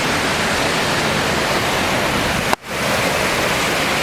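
Waterfall rushing: a loud, steady roar of falling water, briefly cut off about two and a half seconds in.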